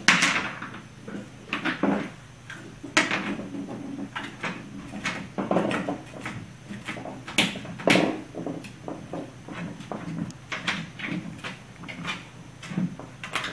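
Ice cube knocking and skidding on a hardwood floor and against the baseboard as a puppy bats it with its paws. The sharp knocks and scrapes come irregularly, in quick clusters at times.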